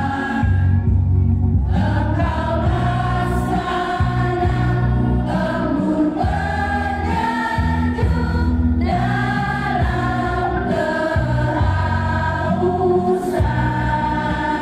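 A choir of teachers, mostly women's voices, singing a slow song together, with long held notes that change every second or two.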